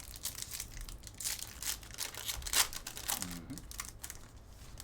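Trading-card pack wrappers being torn open and crinkled by hand: a run of sharp crackling rustles.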